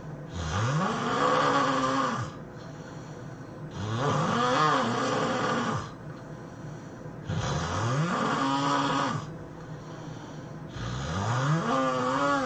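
A person snoring heavily: four long snores about three and a half seconds apart. Each snore has a rough tone that rises in pitch and then levels off.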